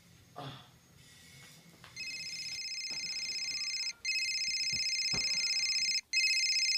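Mobile phone ringtone: a high electronic trill that starts about two seconds in and rings in stretches of about two seconds with brief breaks, growing slightly louder. Before it, a faint soft rustle.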